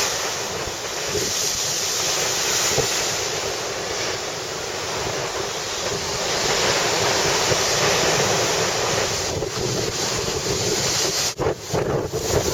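Storm surf and strong wind, with wind buffeting the microphone; the rush is steady, then turns uneven and gusty near the end.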